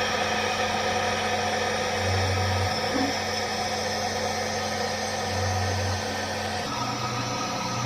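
A machine running steadily with a droning mix of tones. A low hum swells briefly about every three seconds, and the pitch shifts slightly near the end.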